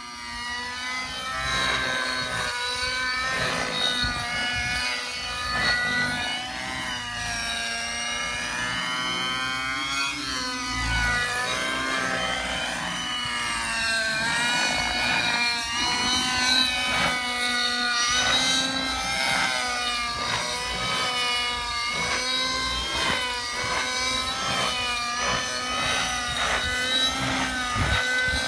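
Synergy N5C radio-controlled helicopter in flight, its OS 55HZR two-stroke nitro glow engine and rotor running throughout. The whine's pitch rises and falls every few seconds as the helicopter manoeuvres and passes, over a steadier low hum.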